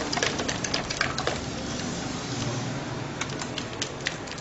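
A spatula tapping and scraping against the sides of a nonstick cooking pot as thick custard is beaten, making a quick, irregular clatter of taps.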